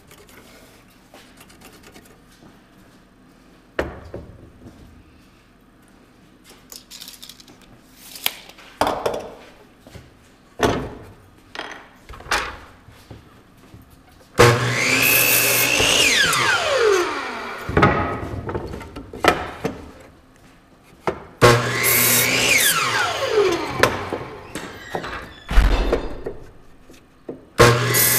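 DeWalt miter saw cutting wooden boards: the motor spins up with a rising whine, the blade cuts through, then winds down with a falling whine. This happens twice, and a third cut starts near the end. Before the first cut there are a few sharp knocks of wood being handled.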